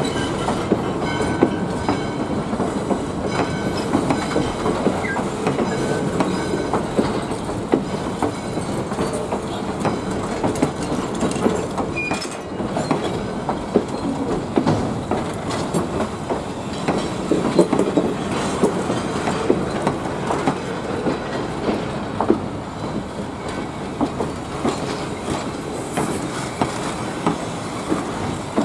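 Steel passenger coaches of a steam train rolling slowly past, their wheels clicking and knocking over the rail joints in a steady rumble.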